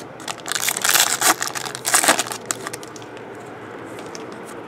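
Trading-card pack wrapper being torn open and crumpled, a loud crackling for about two seconds, then quieter rustle as the cards are handled.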